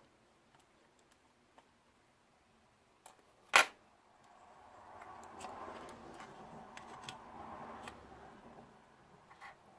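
Small parts being handled during close-up repair work: scattered faint clicks and taps, one sharp click about three and a half seconds in, then a faint rustling with a few more light clicks.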